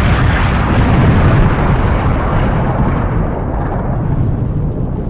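Explosion sound effect: a loud, heavy rumbling blast that slowly dies away, its hiss fading first.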